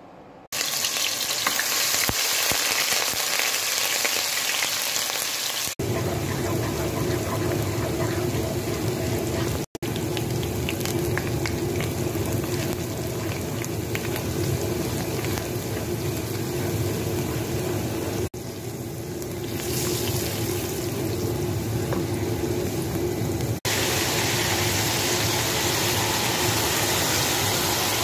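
Hot oil sizzling in a frying pan as spices and then chicken pieces fry, a steady hiss that breaks off briefly at several cuts.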